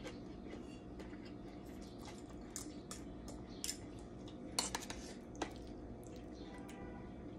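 Metal spoon and fork clinking and scraping against stainless-steel bowls as food is scooped up, a scatter of sharp clinks with the loudest cluster a little past the middle. A steady low hum runs underneath.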